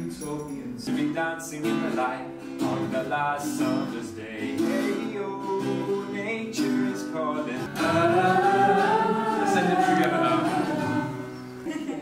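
A man singing to a strummed acoustic guitar, with a long wavering held note near the end.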